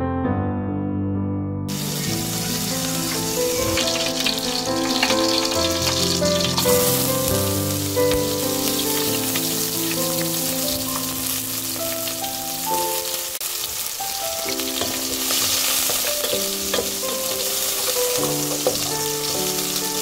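Sliced onion frying in oil in an aluminium pot, a steady sizzle that starts about two seconds in, under background music with piano.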